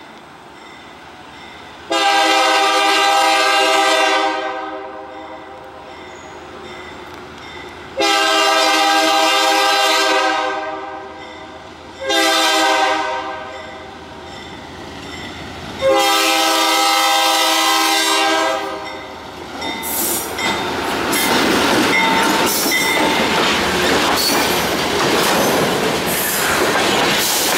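GE B23-7 diesel locomotive sounding its air horn in the grade-crossing pattern: two long blasts, a short one, then a long one. About twenty seconds in, the locomotive and its freight cars pass close by, the engine running over the steady noise of steel wheels on the rails.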